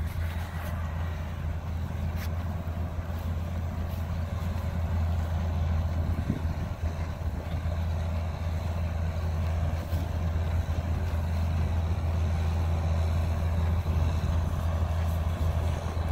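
Diesel engine of a compact track loader running steadily under load while it cuts a trench with a trencher attachment, a constant low drone that grows a little louder as the machine comes closer.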